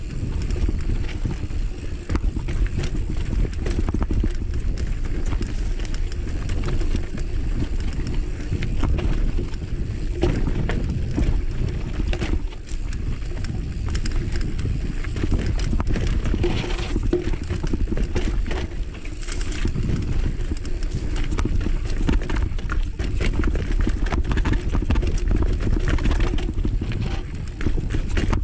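Mountain bike rolling down a dry dirt singletrack: a steady low rumble of tyres on dirt, with frequent clicks, knocks and rattles from the bike over rough ground.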